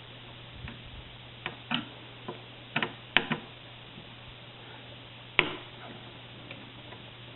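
Small sharp clicks and taps from hands working the wire terminals of an old thermostat. They come bunched about one and a half to three and a half seconds in, with one louder click about five and a half seconds in.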